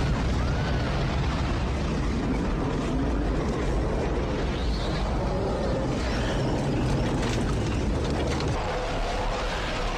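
Typhoon-force wind and driving rain buffeting the phone's microphone in a loud, steady rumble.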